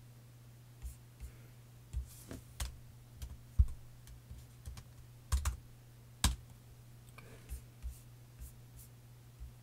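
Irregular key taps and clicks on a laptop keyboard, a few louder ones in the middle, over a steady low electrical hum.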